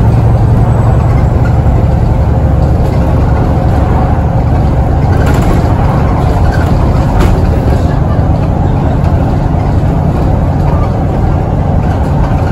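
VDL SB200 bus's diesel engine and drivetrain heard from inside the saloon while under way: a loud, steady low drone with road noise and a few faint rattles.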